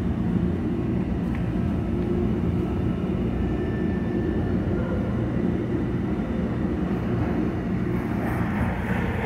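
Interior running noise of a SEPTA Subway-Surface trolley car (a Kawasaki light rail vehicle) in the subway tunnel: a steady low rumble of wheels on rail and traction motors, heard from inside the car.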